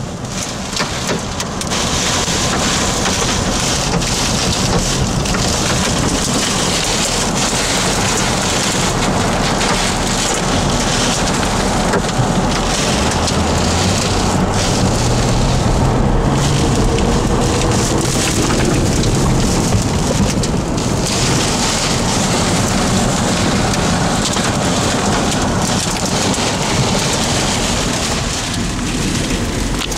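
Heavy rain falling steadily and loudly, with a low rumble underneath.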